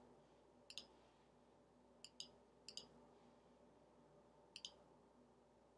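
Faint clicks of a computer mouse button, four quick pairs of clicks, selecting items in on-screen dialogs.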